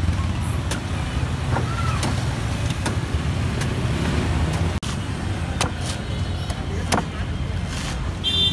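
Heavy cleaver chopping into a green coconut's husk: a string of sharp, irregular chops about once a second, over the steady low rumble of street traffic.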